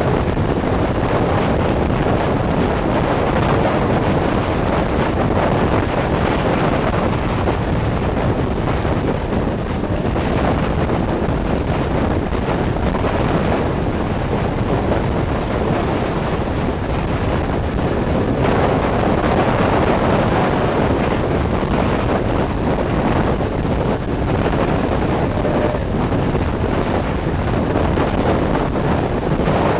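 Wind buffeting a microphone held out of a moving passenger train's open window, over the steady running noise of the carriages on the track.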